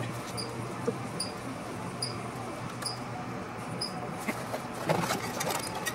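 Faint, evenly spaced high chirps, a little more than one a second, over a steady low hum. About two-thirds of the way in they give way to light scratching and rubbing against the aluminium wing skin as it is marked and handled.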